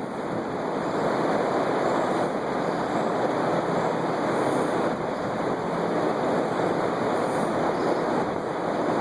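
Strong wind buffeting the microphone: a steady, loud rushing.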